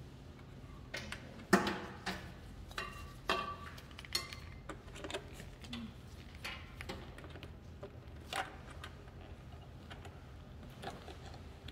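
Plastic hose couplings clicking and knocking against the connection ports of a TECOtherm NEO cooling unit as gloved hands work them in. About a dozen scattered clicks, the loudest about a second and a half in, over a low steady hum.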